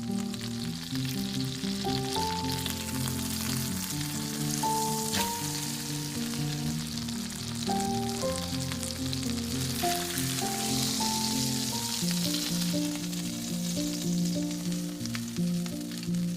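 Food frying in hot oil, a steady sizzle, over background music with a plucked-sounding melody.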